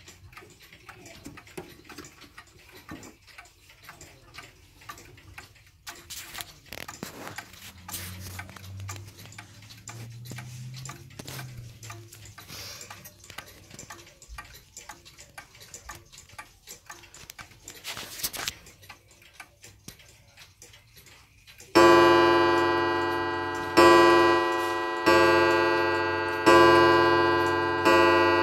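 Antique Japanese 'Z' trademark pendulum wall clock ticking steadily, with a few knocks of handling. Near the end it strikes its coiled wire gong about five times, each strike ringing out and fading before the next.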